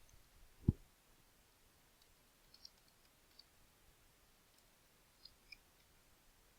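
A few faint computer mouse clicks: one clearer click just under a second in, then several very faint ticks spread through the rest.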